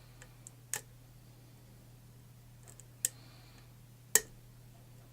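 Sharp isolated clicks from a pick working the pins of a custom challenge lock: three loud clicks spread over a few seconds, with fainter ticks between. The picker thinks they could be overset trap pins he is clicking into.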